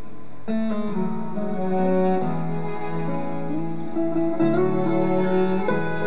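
Live acoustic instrumental ensemble playing: two acoustic guitars with violin and cello, the strings holding long bowed notes over the guitars. A fuller chord comes in about half a second in.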